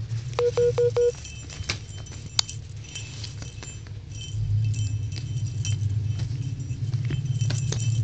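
Small bell on a cat's toy jingling and clicking as a kitten bats and bites it. Near the start come four short pitched tones in quick succession, and from about halfway a low steady rumble grows louder.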